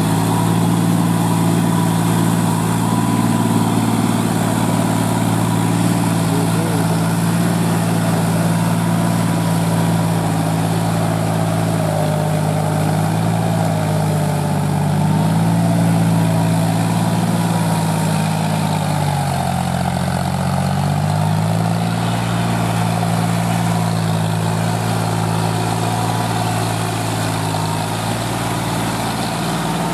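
John Deere 5045D's three-cylinder diesel engine running steadily under load as the tractor drives a PTO rotavator through flooded rice-field mud. About two-thirds of the way through, the engine note dips in pitch for a couple of seconds, then recovers.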